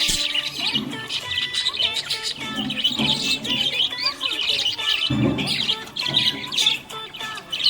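Small pet parrots chirping and twittering busily and without pause, several rapid high chirps overlapping, over background music.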